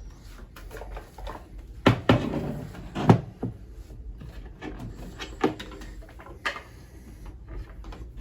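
Knocks and clunks of studio gear and desk parts being handled and shifted, with the loudest bumps about two and three seconds in and a few lighter ones later.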